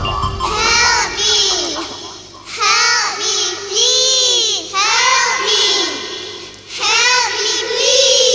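A child's high voice making wordless rising-and-falling sounds in four phrases, without musical accompaniment.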